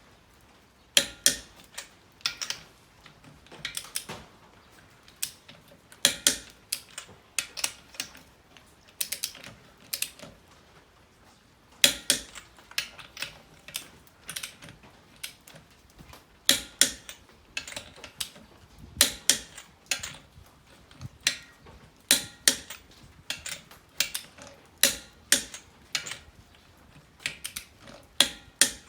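Hand ratchet wrench clicking in short runs of sharp strokes, with pauses between the runs.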